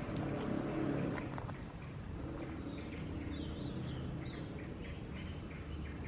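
Outdoor ambience: small birds chirping in short high calls, over a low motor hum that fades about a second and a half in.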